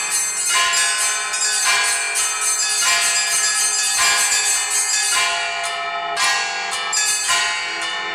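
Orthodox Easter peal on a set of church bells, rung by an automatic electronic bell-ringing system. Small high bells are struck rapidly in overlapping strikes over the lingering tones of larger bells.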